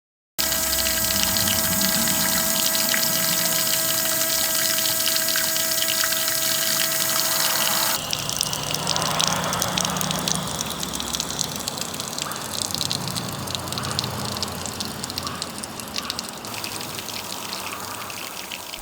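Water running and gushing, starting suddenly after a moment of silence. The sound changes abruptly about eight seconds in to an uneven, burbling flow that slowly fades, and shifts again near the end.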